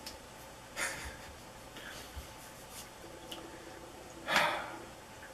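A man breathing noisily through the nose or mouth, twice: a short breath just under a second in and a louder, longer one about four seconds in.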